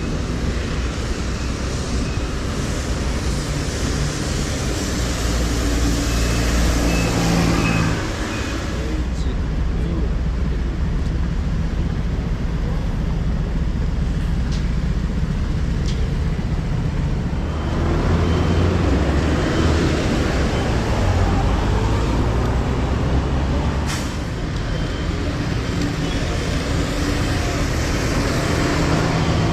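City street traffic with the steady rumble of engines. It swells twice as heavier vehicles, such as buses or trucks, go by.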